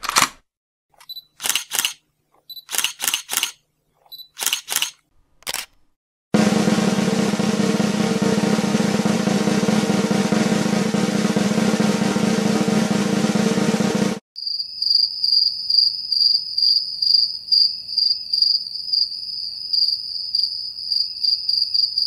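Three stock sound effects in turn. First a gun being reloaded: a run of short clicks and clacks. Then a drum roll held for about eight seconds that stops abruptly, and then crickets chirping in a steady, pulsing high trill.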